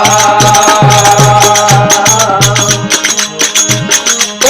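Instrumental interlude of a Rajasthani devotional bhajan: a steady held melody line over regular drum beats and jingling, shaken percussion.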